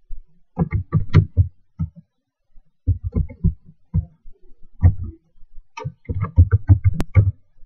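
Typing on an ASUS K54 laptop keyboard: runs of dull key taps in short bursts, with one sharper click near the end.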